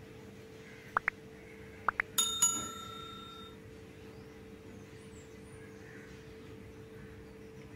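A small metal bell is struck twice in quick succession and rings out, fading over about a second. It follows four very short high chirps, and a steady low hum runs underneath.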